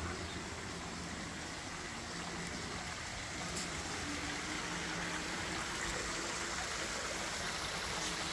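Water running down a stepped stone garden fountain, a steady splashing flow that grows a little louder about three seconds in.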